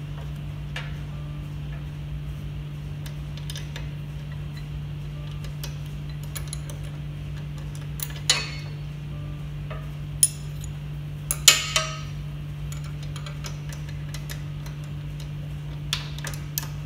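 A steel spanner clinks against the locking screws and cast-iron frame of a leather strap cutter as the roller tension screws are tightened. There are scattered sharp metallic clicks, the loudest a cluster about 8, 10, and 11 to 12 seconds in, over a steady low hum.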